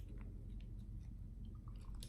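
Soft, wet squishing with scattered small clicks from spicy buldak udon noodles, close to the microphone.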